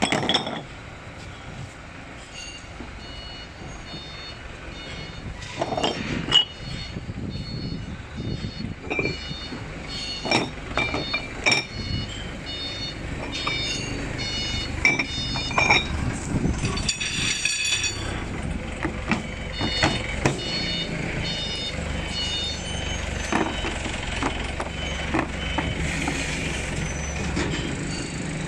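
Cast-iron dumbbell plates and metal bar parts clinking and knocking as they are set into a moulded plastic carry case. Behind them runs a steady low engine rumble with repeated short high beeps.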